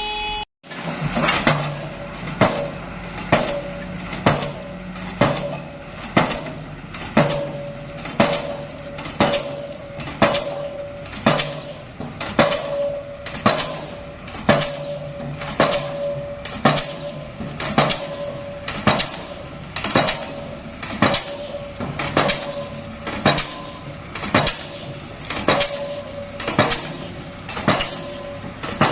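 Heavy hammer blows on metal, evenly spaced about once a second, each leaving a short metallic ring.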